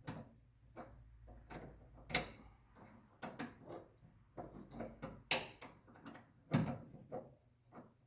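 Hand tools working the steering rack bolts: irregular metal clicks and knocks, the loudest about two, five and six and a half seconds in.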